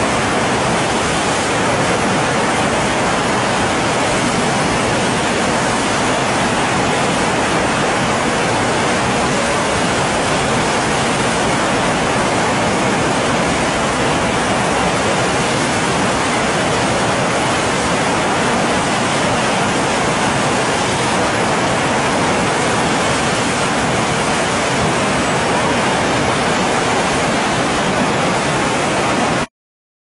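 Steady rushing of river whitewater at a standing surf wave, an even, unbroken noise that cuts off suddenly near the end.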